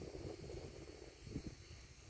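Faint night-time outdoor background: a low rumble with a thin steady high hiss over it, and one soft knock about one and a half seconds in.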